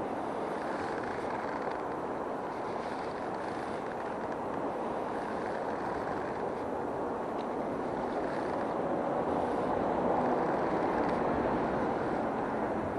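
Strong river current washing against the bank: a steady rushing of water that swells a little about ten seconds in.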